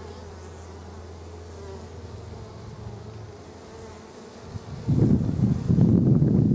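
Honey bees buzzing in a steady hum around an open, crowded hive. About five seconds in, a much louder rough rumbling noise comes up over it and carries on to the end.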